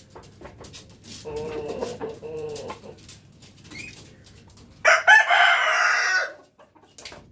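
Jungle fowl rooster crowing: a fainter, lower call about a second in, then a loud crow about five seconds in lasting about a second and a half.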